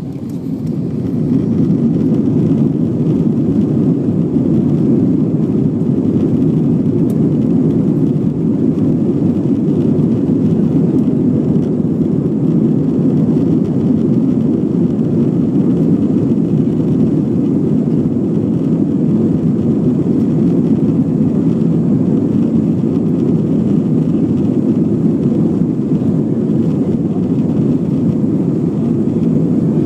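Airbus A320 jet engines and rushing airflow during takeoff: a loud, steady roar that swells over the first second or two and then holds level.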